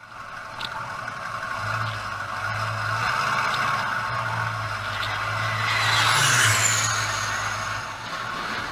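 Aircraft engine noise that swells to its loudest about two-thirds of the way through, where a high whine falls in pitch, over a steady low hum.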